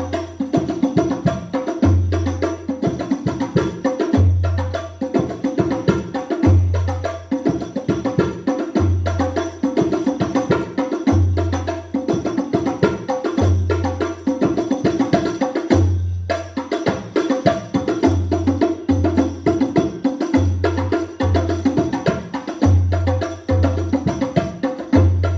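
Hadrah frame-drum ensemble playing through a sound system: quick rebana strokes over a deep bass drum hit about every two and a half seconds, the bass hits coming in pairs in the later part.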